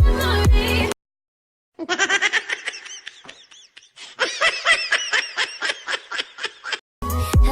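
Laughter sound effect: a person laughing in quick repeated bursts, a shorter stretch followed by a longer, louder one.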